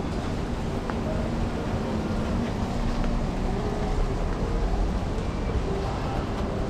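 Rain falling on a clear umbrella held overhead: a steady hiss with small scattered drop ticks, over a low hum of street traffic.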